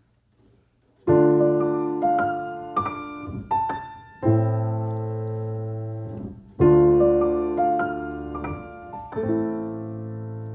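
Grand piano played four hands: slow sustained chords struck about every two and a half seconds, each ringing out and fading, with a few single melody notes between them. It starts about a second in.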